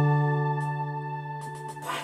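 Instrumental music: a sustained chord held and slowly dying away.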